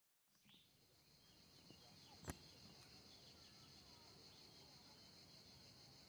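Faint outdoor countryside ambience fading in: a steady high insect chirring with a few faint bird chirps, and a single sharp click a little over two seconds in.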